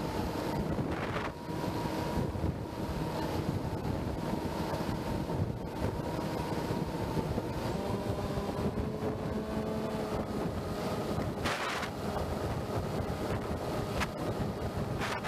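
Wind rushing over the onboard camera microphone of a 2 m E-flite Opterra flying wing in cruise, mixed with the steady hum of its electric pusher motor and propeller. The motor's tones shift in pitch about eight seconds in, and there is a brief louder rush of air later on.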